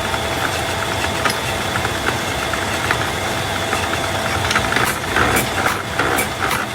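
Workshop machinery running with a steady hum and a faint constant tone, joined by a quick run of sharp clicks about five seconds in.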